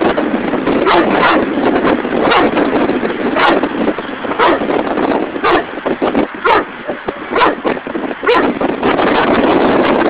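A dog barking repeatedly, about nine sharp barks roughly a second apart, over steady wind noise on the microphone.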